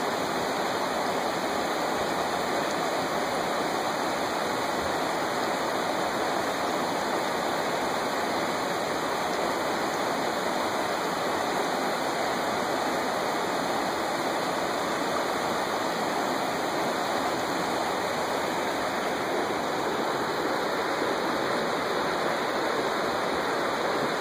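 Shallow mountain river rushing steadily over a rocky bed, an even, unbroken sound of flowing water.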